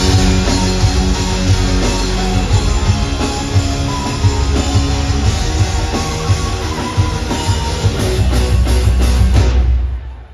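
Live band playing the instrumental intro of a pop-rock song, with electric guitar, bass and drum kit and no vocals yet. The band cuts out abruptly near the end for a brief break.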